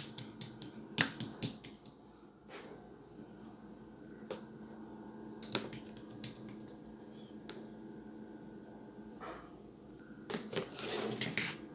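Irregular sharp clicks and taps over a steady low hum. They come in a quick cluster at the start, then singly every second or two, and in a denser burst near the end.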